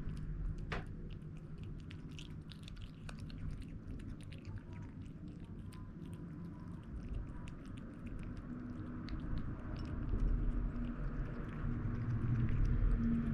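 Kitten eating wet canned cat food: many small wet chewing and lapping clicks. In the second half a low, steady drawn-out sound joins in.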